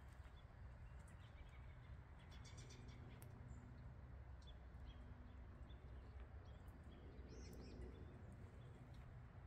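Near silence: a faint steady low rumble with a few faint bird chirps, a short cluster about two to three seconds in and another near eight seconds.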